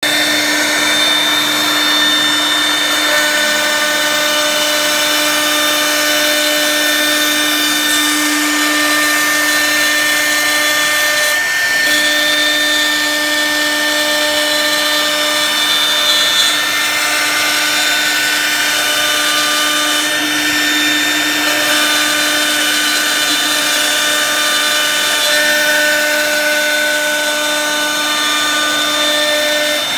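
A power tool cutting dados, its motor running steadily with a constant hum and a loud hiss of cutting; the sound dips briefly about twelve seconds in.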